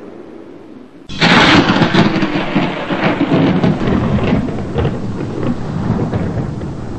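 Thunder sound effect: a loud crack breaks in suddenly about a second in and rolls on as a long, uneven rumble.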